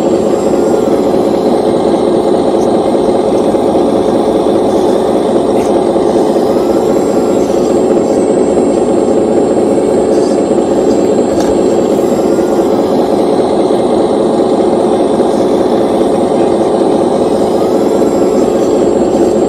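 RC hydraulic excavator running steadily, its hydraulic pump drive giving a continuous mechanical hum with a steady whine while the boom works.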